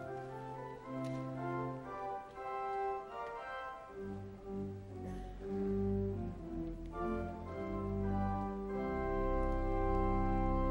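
Instrumental music of slow, sustained chords, with a low bass line coming in about four seconds in.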